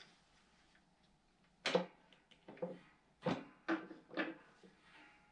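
Qwik Chute discharge cover and its spacers knocking and clattering against the mower deck as they are set in place: about five short clunks in the second half.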